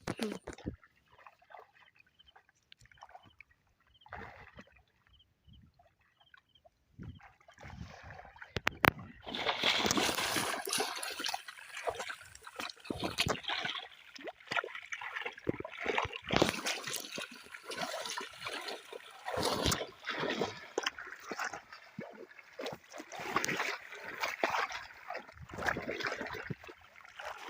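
Pond water splashing and sloshing as it is worked by hand, faint and sparse for the first several seconds, then busy and continuous from about nine seconds in, with many irregular splashes.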